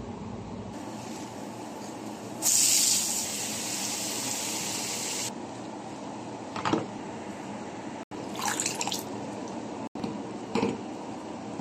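Water running from a kitchen tap into a sink for about three seconds, over a steady background hiss, followed by a few short, brief noises.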